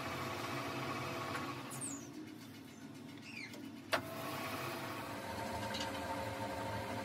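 Engine lathe turning a crankshaft, its motor and gearing humming steadily. The hum drops away for about two seconds, with a few faint squeaks. A single sharp click comes about four seconds in, and the hum picks back up.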